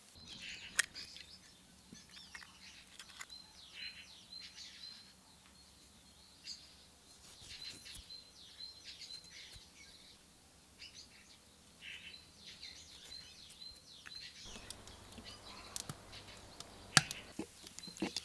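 Small birds chirping and twittering in quick, repeated short notes, with a few sharp clicks near the end.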